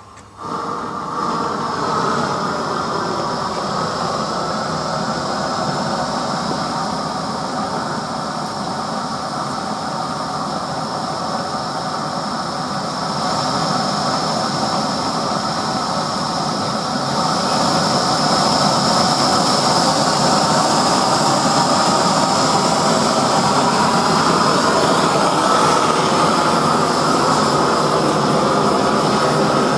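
Handheld gas torch burning with a loud, steady rushing noise, its flame held against a board coated with fire-proofing. The noise starts abruptly about half a second in and gets a little louder about halfway through.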